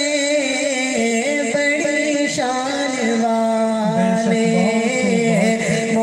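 A young man's voice singing a naat (an Urdu devotional poem in praise of the Prophet), drawing out long notes with ornamented, wavering pitch and a brief break about two seconds in.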